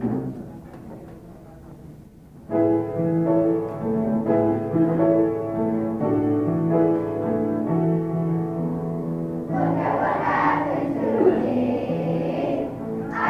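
A piano introduction starts about two and a half seconds in, and about ten seconds in a large children's choir begins singing with it.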